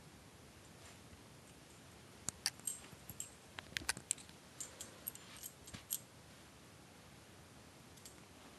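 A cluster of light clicks and short jingles from about two seconds in, lasting some four seconds, against quiet room tone.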